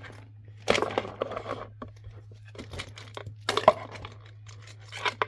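Plastic fidget toys being handled and packed away: crinkling and rustling with small clicks and clatters, in three bursts.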